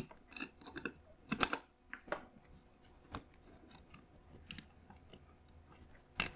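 Small clicks and taps of airsoft pistol parts being handled and fitted together by hand, with a sharper click about a second and a half in and another near the end.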